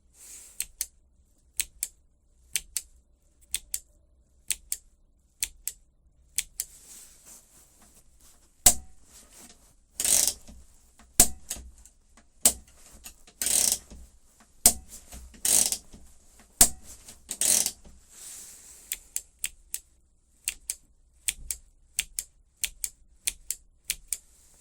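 Electric car giving a run of sharp mechanical clicks, mostly in pairs about once a second, with several louder, longer hissing bursts in the middle.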